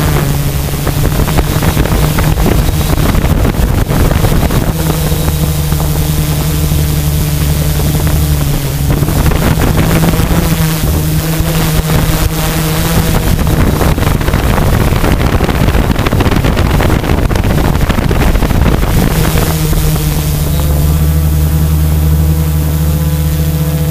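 A multirotor drone's electric motors and propellers heard from its own onboard camera: a steady hum whose pitch shifts up and down several times as the throttle changes, with wind rushing over the microphone.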